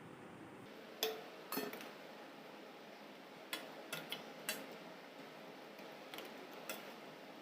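A kitchen utensil clinking and knocking against a cooking pot, about eight short sharp strikes at irregular intervals, over faint background hiss.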